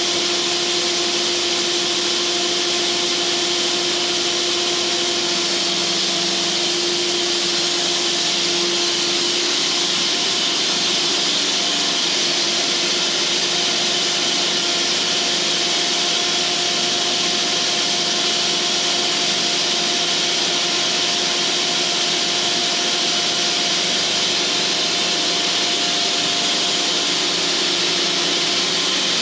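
Cooks band sawmill running steadily, its band blade sawing through a log with a continuous hiss over a machine hum; a hum tone drops out about a third of the way in.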